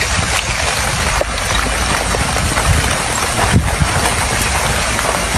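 Loud rushing noise with irregular low gusts and a few knocks: wind buffeting the microphone.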